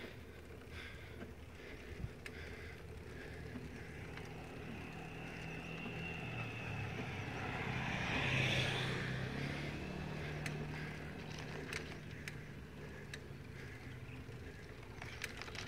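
A motor vehicle approaching and passing on the road: a low engine hum swells to its loudest about eight seconds in with a rush of tyre and air noise, then fades away. Scattered light clicks come and go throughout.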